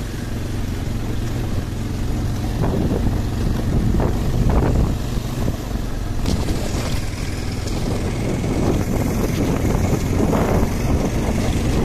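Motorcycle engine running steadily while the bike is ridden along, with wind rumbling on the microphone.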